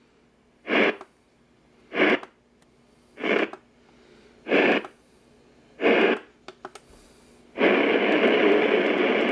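A weather radio's speaker gives five short bursts of static about a second and a quarter apart as its weather-band channels are stepped through by hand, with a few faint button clicks. Steady radio sound comes back near the end as it lands on a channel with a broadcast.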